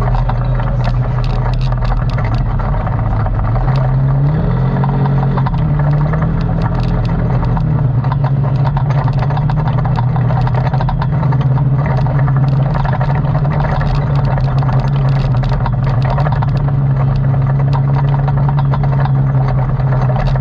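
ATV engine running steadily while riding, its pitch stepping up a little about four seconds in and then holding, with frequent clicks and rattles over it.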